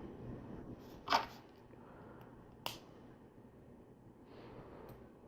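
Two small plastic clicks of LEGO pieces being snapped together, about a second and a half apart, while assembling a minifigure's stud-shooter gun.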